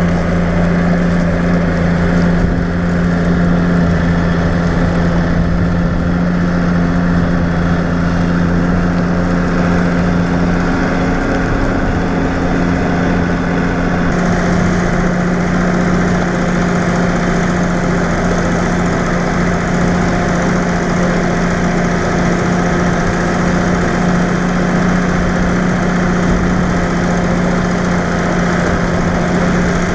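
New Holland 8160 tractor's diesel engine running steadily under load while pulling a four-furrow reversible plough; its tone shifts slightly about halfway through.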